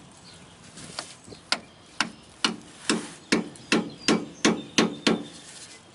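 A hammer striking the plastic handle of a screwdriver, about ten sharp blows at roughly two a second, starting about a second in and quickening slightly toward the end. The screwdriver is being driven in as a wedge to pry down a stuck hydraulic cylinder mount on an excavator.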